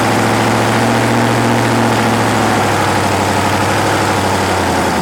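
Top fuel dragster's supercharged V8 engine idling loudly and steadily, cutting off abruptly near the end.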